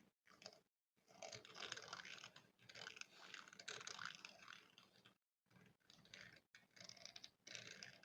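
A spoon scratched directly on a microphone, giving close, crackly scraping strokes. There is one long stretch of scratching from about a second in, then a few shorter strokes near the end.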